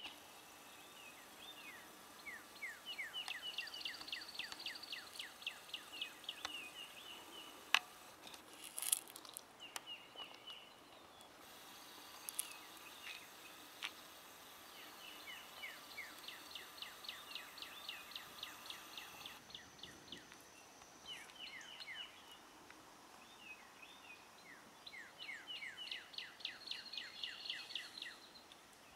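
Faint birdsong outdoors: quick runs of short, high, falling chirps repeated several times a second, coming in bouts of a few seconds, with a couple of brief clicks partway through.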